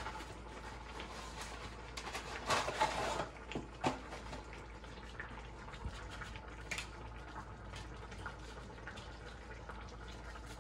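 A pot simmering on the stove, a faint steady bubbling hiss. Over it come light kitchen handling sounds: a brief louder rustle or clatter about two and a half seconds in, then a few sharp clicks.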